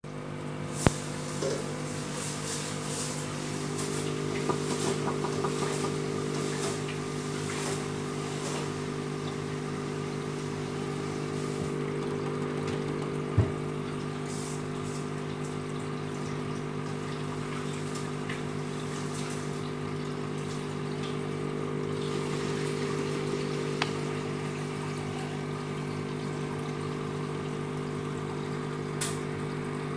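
Steady low hum of an aquarium pump, with the bubbling of heavy aeration in the tank and a few sharp clicks.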